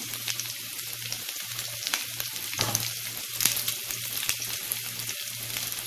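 Sliced garlic frying in hot oil in a non-stick pan: a steady sizzling hiss with scattered small pops and crackles.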